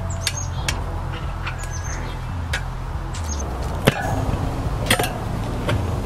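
Steel tire irons clinking and knocking against each other and the KTM 125 SX's rear rim while they are pushed over to lever the tire bead off. There are several sharp clicks, the loudest about four and five seconds in, over a low steady hum.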